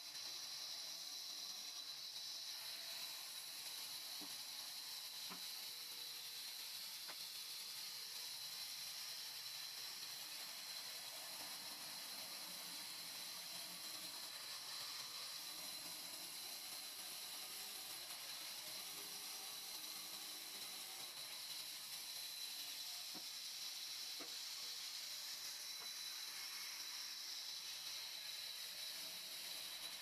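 Band saw blade running through a thick wooden slab: a steady, faint hiss with a high whine, and a few light ticks.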